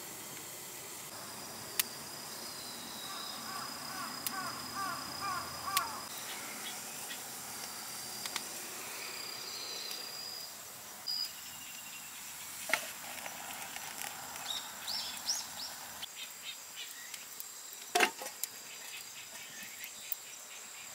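Outdoor dusk ambience: insects trilling steadily in high thin tones, with a run of short chirps about three to six seconds in and higher trills later. A few sharp pops and knocks from the campfire and kettle handling, the loudest about eighteen seconds in.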